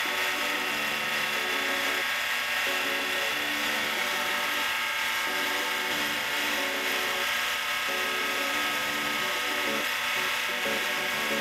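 Mini lathe running steadily, its motor and gear train giving an even whine and hiss, while a wooden dowel with high-luster polishing compound is pressed against the spinning aluminum bar.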